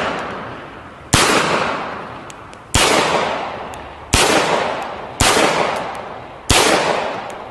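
Mauser C96 pistol fired six times in slow single shots, roughly one every second or so, each a sharp crack followed by an echo that dies away over about a second.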